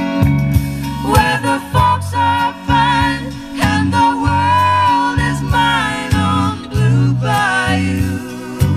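A song with a singing voice over guitar and a bass line, played through a small push-pull valve amplifier and a pair of bookshelf speakers on a test run. The voice comes in about a second in and drops out near the end.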